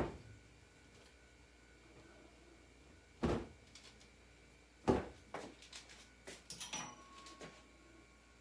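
Household things being handled and set down: a sharp knock at the start, two duller knocks about a second and a half apart a few seconds later, then a run of light clicks and clatters.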